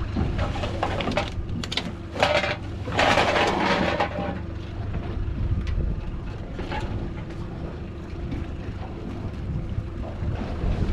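Wind buffeting the microphone over a steady low rumble aboard a small boat, with a few short bursts of handling noise in the first four seconds.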